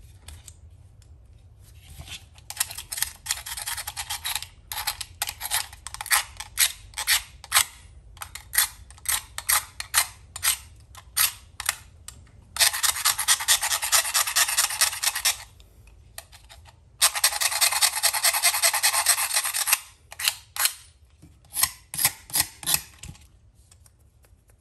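Utility knife blade scraped against the steel of an old knife: a run of short, quick strokes, then two longer continuous scrapes of a few seconds each, then a few more short strokes near the end.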